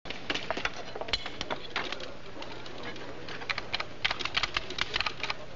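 Typewriter keys clacking in quick, irregular runs of clicks, over a faint steady low hum.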